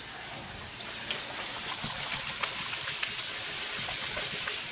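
Kitchen faucet running into a bowl of diced potatoes as they are rinsed to wash off the starch, a steady hiss of water with a few faint ticks.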